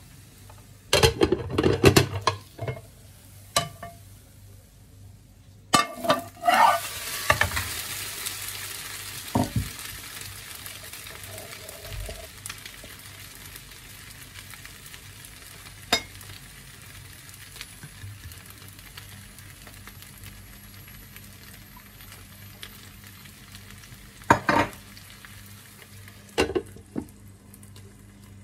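Leek, carrot and noodle mixture sizzling in a nonstick frying pan. Clatter of the pan and utensils about a second in and again around six seconds in, then a steady frying sizzle that slowly fades. Two more clanks near the end as the glass lid goes back on.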